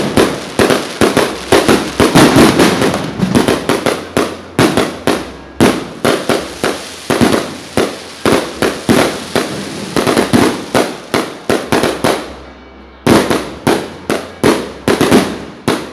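Fireworks going off in rapid succession: sharp bangs and crackling bursts, several a second. They break off briefly about twelve seconds in, then start again.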